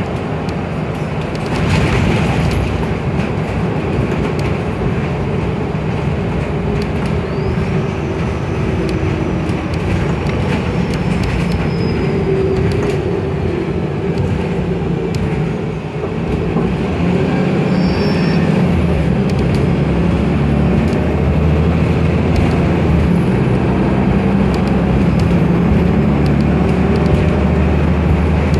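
Inside a moving city transit bus: steady engine drone and road noise. About two-thirds of the way through, the low engine hum grows stronger and louder.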